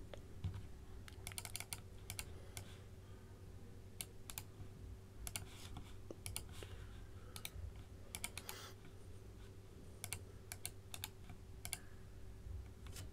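Computer keyboard typing: faint key clicks in short, irregular clusters, over a faint steady hum.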